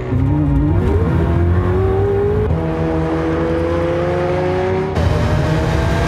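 Sports car engine accelerating hard over a deep rumble. Its pitch climbs steadily and drops back at gear changes about two and a half and five seconds in.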